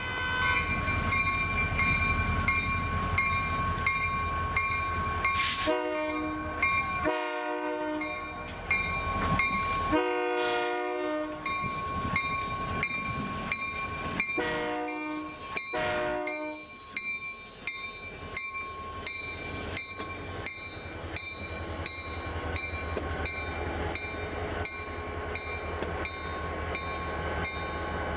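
Diesel locomotives running with a steady engine rumble and a bell ringing on and off at an even beat. The horn sounds five blasts between about six and sixteen seconds in; the middle one is the longest.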